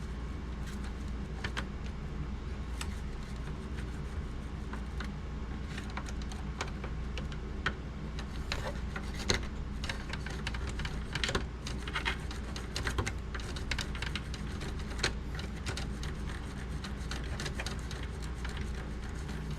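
Toothbrush scrubbing the inside of an open VCR, with irregular light clicks and short scratches as it works over the plastic and metal parts, over a steady low hum.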